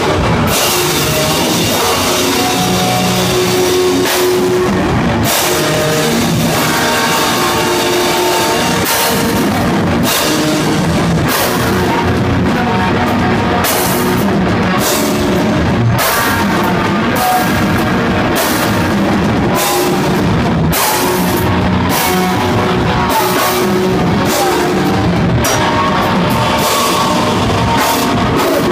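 A live technical grindcore band playing loudly: heavily distorted electric guitar riffs over fast drums and cymbals.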